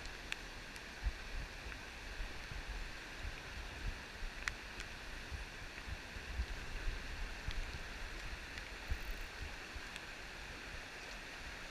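River water rushing steadily over its bed, an even hiss, with faint low bumps underneath.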